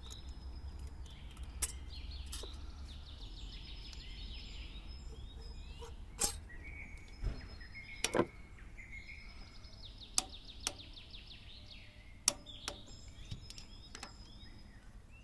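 Small birds chirping and singing with fast trills, with about a dozen sharp clicks and taps scattered through, loudest around the middle.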